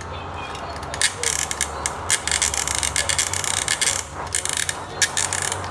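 Hand crank on a plastic toy crane being turned, its ratchet clicking rapidly as it winds the hook's string. The clicking starts about a second in and comes in two spells, with a short break near four seconds.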